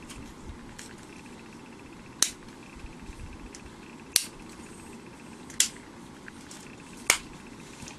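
Quick-release leg locks on a Taurus TG5060TR tripod snapping open, four sharp clicks spaced about one and a half to two seconds apart.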